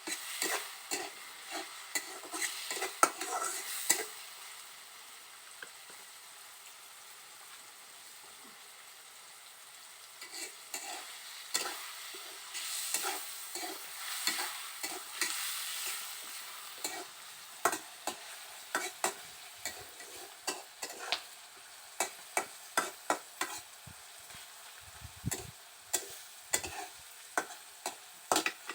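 Garlic and onion frying in a little oil in a pan, stirred with a spatula that scrapes and knocks against the pan. The stirring pauses for several seconds about four seconds in, then goes on again.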